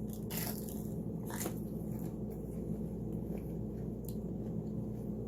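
Close-up eating sounds: biting into and chewing food, with a few short crisp crackles about half a second in, about a second and a half in, and about four seconds in, over a steady low hum.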